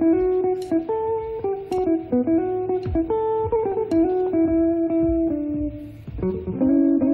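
Background music: a guitar plays a slow melody of held single notes that step up and down in pitch.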